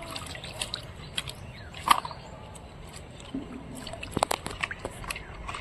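Scattered light clicks and knocks over a faint steady background, with one sharper click about two seconds in and a quick cluster of taps about four seconds in.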